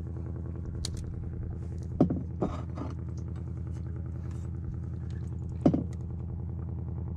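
An engine idling steadily with an even low drone, with a few short knocks and thumps against the boat about two seconds in and again near six seconds.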